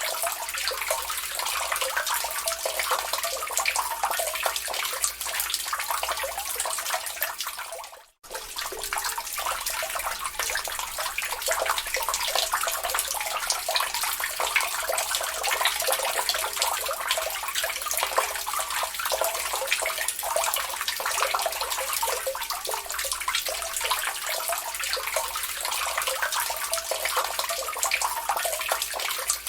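Water dripping steadily into a lake: a dense, even patter of many small drips and splashes. The sound cuts out for a split second about eight seconds in, then carries on unchanged.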